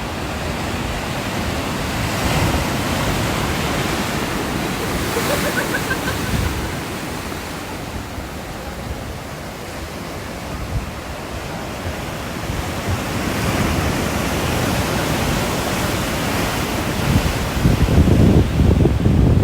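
Ocean waves breaking and washing on the shore, swelling and ebbing every several seconds, with wind buffeting the microphone near the end.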